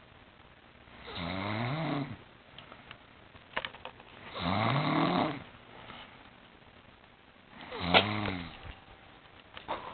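A sleeping woman snoring really loud: three long snores about three seconds apart.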